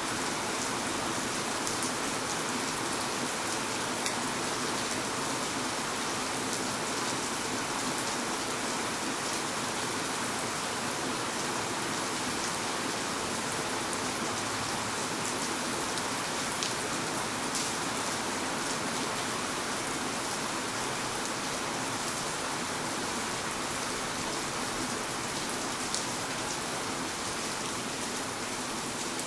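Steady rain falling and pattering on surfaces, an even hiss with scattered individual drop ticks.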